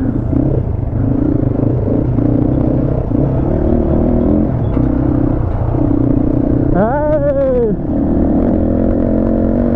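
Motorcycle engine running steadily while riding, a low even drone. About seven seconds in comes a brief call that rises and falls in pitch.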